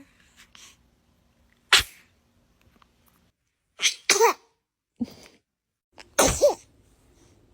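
Baby sneezes: a run of short, sharp sneezes, about five in all, a couple of them ending in a short falling note.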